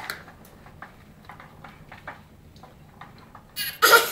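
Graco baby swing making faint, irregular ticks as it swings. Near the end a baby bursts into a loud laugh.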